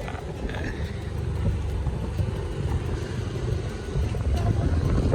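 Motorcycle riding along the road, its engine and road noise under a heavy, uneven low rumble of wind on the microphone, a little louder near the end.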